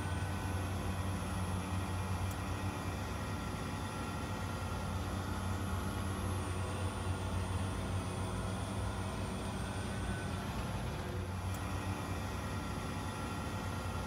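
McQuay rooftop air-conditioning unit running steadily with a low, even machine hum and a faint high-pitched whine above it. The unit has just been switched back on from pump-down, so its compressors are running again.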